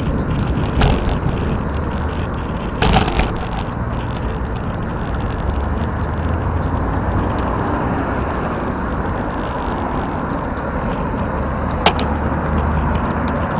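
Steady rushing noise of a bicycle ride along a road, with three short sharp knocks: about a second in, around three seconds, and near the end.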